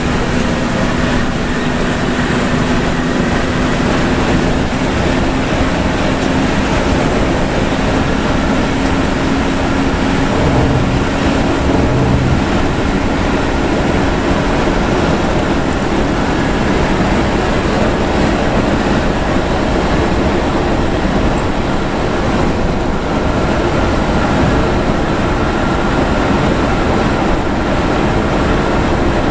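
Intercity bus at highway speed heard from the cab: a steady engine drone with its pitch slowly rising over the first half, over constant tyre and wind noise on a wet road.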